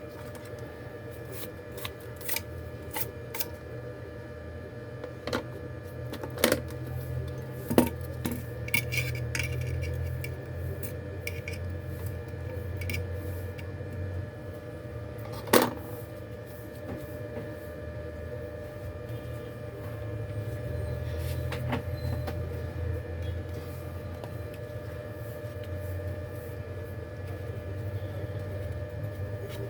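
Small hand tools clicking and tapping against a phone under repair: scattered sharp clicks, thickest in the first half, with the loudest single click about halfway through. A steady low electrical hum runs underneath.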